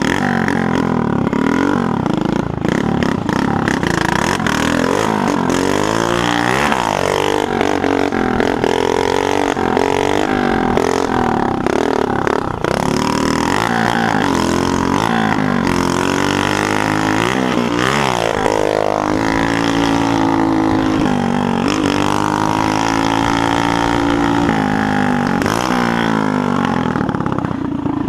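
Small motorcycle with a broken exhaust being ridden, its engine revving up and down again and again as the throttle is opened and closed.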